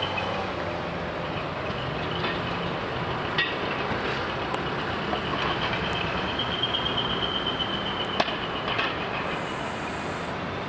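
Heavy diesel truck engine running as the truck rolls in at low speed, with a thin high squeal held for a couple of seconds midway and a few sharp clicks.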